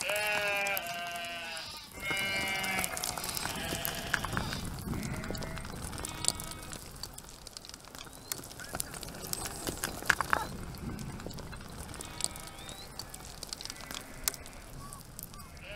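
A mixed flock of sheep and goats bleating, many overlapping calls, loudest in the first three seconds and then fewer and fainter. Scattered sharp clicks of hooves on loose stones sound throughout as the herd scrambles over scree.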